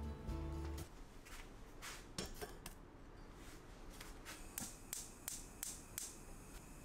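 Background music stops within the first second. After that comes a series of sharp clicks from a gas hob's igniter as the burner knob is turned, coming about three a second in the second half.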